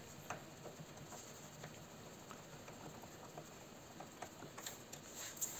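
Faint, irregular small clicks and scrapes of a screwdriver turning a screw out of a refrigerator's metal bottom door hinge, a little more frequent near the end.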